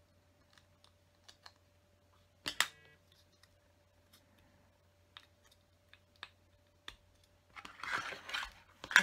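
Small LEGO pieces clicking as they are pressed together by hand, with a sharper snap about two and a half seconds in and a short burst of clatter near the end.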